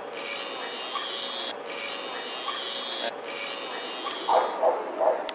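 Toy submarine's small propeller motor whirring steadily with the propeller spinning in and out of the water. The whir breaks off twice briefly and stops about four seconds in, followed by three short loud bursts.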